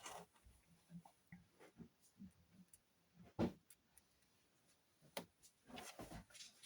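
Faint, scattered clicks and small knocks of tools and parts being handled on a workbench, with one louder knock about halfway through and a short flurry of taps near the end.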